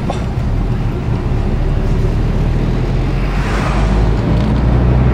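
A Subaru Impreza STI's 2.0-litre flat-four engine running under way, heard from inside the cabin with road noise, getting slightly louder toward the end. A rush of noise swells briefly just past the middle.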